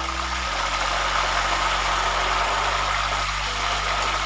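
Cassava (tapioca) chips deep-frying in hot oil, sizzling hard with a steady hiss after a little salt-and-turmeric water has gone into the oil. The sizzle grows louder over the first second and then holds.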